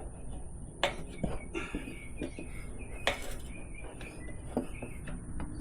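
Metal tire levers and a wrench clinking and knocking against a motorcycle wheel and tire while the tire bead is pried over the rim. There are two sharper clanks, about one second in and about three seconds in.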